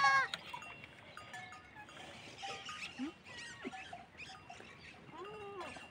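Goats and young kids bleating faintly and intermittently: one bleat tails off at the very start and another short one comes near the end.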